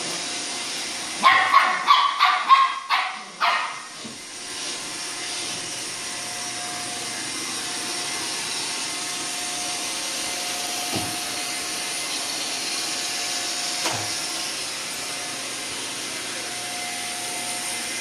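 Shetland sheepdog puppy barking about seven times in quick succession about a second in, over the steady whirring of a Roomba robot vacuum running on a hardwood floor. Two light knocks come later.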